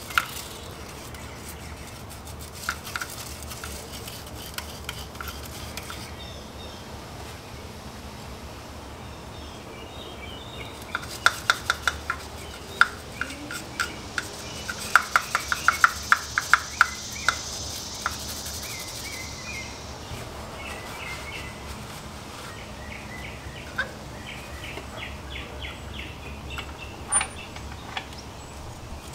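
Hand tools scraping, rubbing and clicking against a BMW E92 M3's throttle bodies as built-up gunk is scrubbed out of them. The clicks and squeaks are light and scattered, with a quick run of sharp clicks in the middle, a soft hiss partway through, and one louder click near the end.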